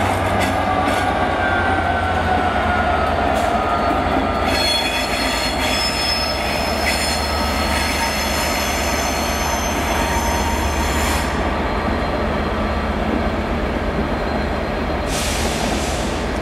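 A diesel-locomotive-hauled passenger train moving slowly through the station, its wheels squealing on the curved track under a steady low engine drone. Over the first few seconds the squeal falls in pitch, then from about four seconds in several high, steady squeal tones sound together until about eleven seconds, and a short hiss comes near the end.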